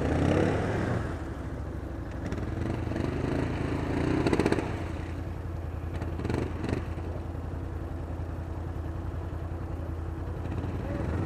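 ATV engines running: a steady low idle, with an engine revving up briefly about four seconds in as a quad works through a muddy water hole. A couple of short clatters follow a couple of seconds later.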